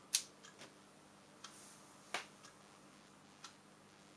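Keys clicking on the Schneider Euro-PC's built-in keyboard: several separate presses at uneven intervals, the loudest just after the start and another about two seconds in, as the key combination to enter BIOS setup is pressed. A faint steady hum lies underneath.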